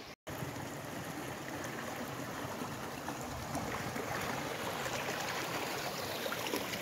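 Shallow rocky burn flowing over stones: a steady rush of running water.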